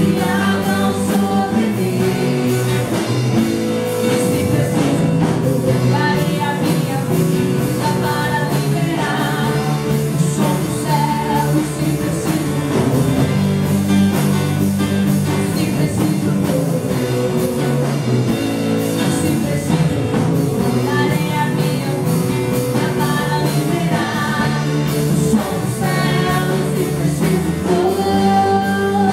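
Portuguese-language Christian worship song: a voice singing over a band with guitar and drums, keeping a steady beat.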